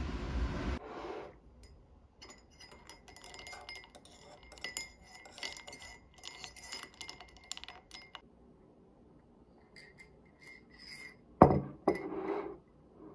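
A metal teaspoon stirring ice cubes in a ceramic mug of iced coffee: many quick, irregular clinks with a light ringing. Near the end comes a single louder knock, followed by a smaller one.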